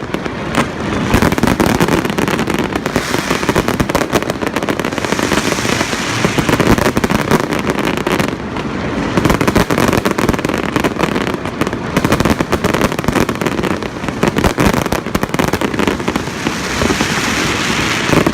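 Fireworks going off in a dense, continuous barrage of bangs and crackling, many shells bursting close together.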